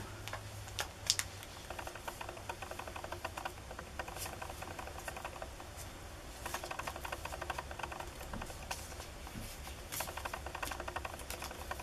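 Pokémon trading cards being handled and flicked through by hand: a soft run of small clicks and rustles, with a few sharper snaps about a second in.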